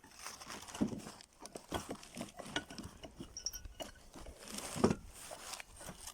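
Irregular clicks, knocks and scraping of metal parts being handled while a refrigerator compressor is taken apart by hand, with a louder knock just before the five-second mark.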